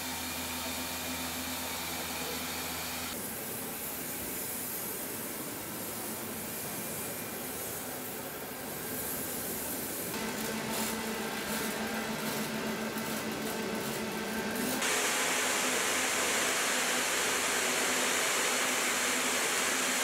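Factory-floor noise of aluminium train-body welding and machining: a steady hiss and machine hum that changes character every few seconds. There is a rapid crackle in the middle, and a louder, brighter hiss over the last five seconds.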